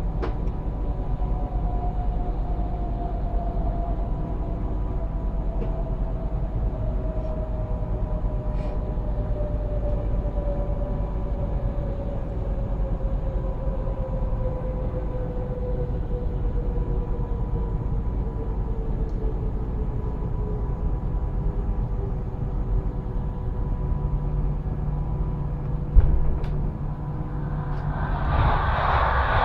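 ED250 Pendolino electric train braking hard: a low rumble with a whine that falls slowly and steadily in pitch as the train slows. Near the end there is a single thump, then a rushing noise grows louder.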